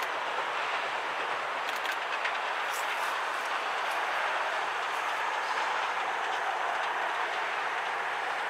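Steam-hauled passenger train running along the line: a steady rolling noise with a few faint clicks in the first few seconds.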